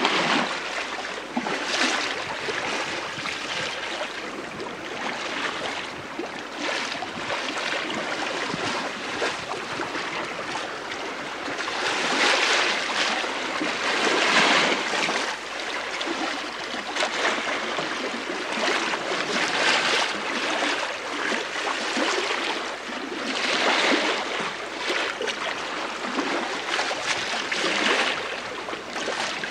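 Bow wave of the sail training schooner STS Malcolm Miller under sail in light wind, heard from the lee quarter: a continuous rushing wash of water along the hull that swells and eases irregularly, loudest a little before halfway through.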